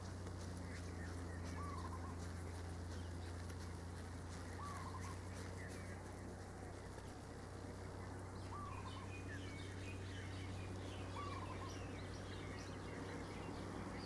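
Birds calling: a short arched call repeated about every three seconds, with quick high chirps from other birds crowding in over the second half, over a steady low hum.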